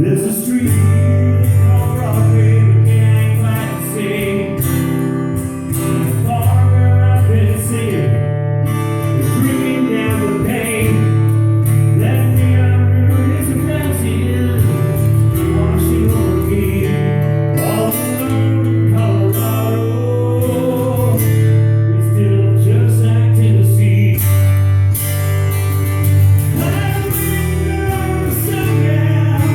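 Live song in a sound check: a male singer sings with guitar over a steady bass line that changes note every couple of seconds.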